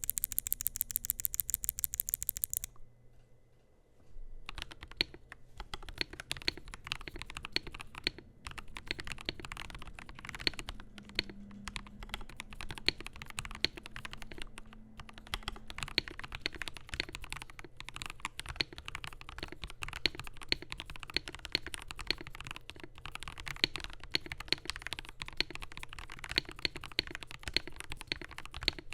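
Typing on a Kemove K87 1980 mechanical keyboard with lubed and filmed Gateron Red and Silver linear switches in a stainless steel plate with PBT keycaps: a steady stream of uneven keystrokes. It opens with a very even, fast run of bright clicks lasting a couple of seconds, then a short pause before the typing starts.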